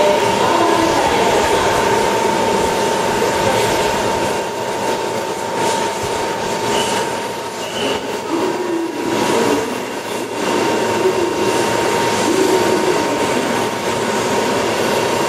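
100 series Shinkansen train moving slowly at a station platform: rail and wheel noise, with a steady high-pitched tone held throughout.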